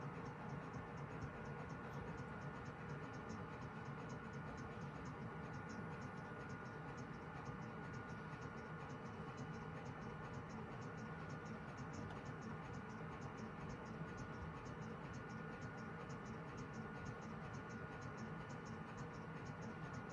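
ProJet 660Pro 3D printer's powder feeder running: a steady mechanical hum with several constant tones and a fast, even high ticking. It is straining to work hardened build powder, which stalls the feeder.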